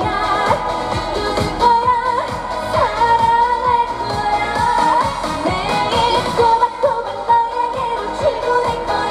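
Korean trot song played live through the stage sound system: a steady dance beat under a long, wavering lead melody.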